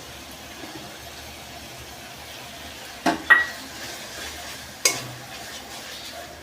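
Masala paste with ground cashews sizzling gently as it is sautéed in a kadai, with a metal spatula knocking against the pan a few times, about three and five seconds in.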